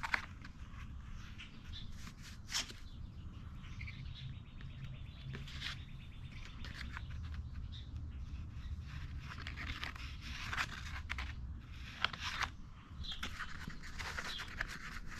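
Light scratching, scraping and a few sharp clicks as JB Weld two-part epoxy is handled and mixed by hand, over a low steady hum.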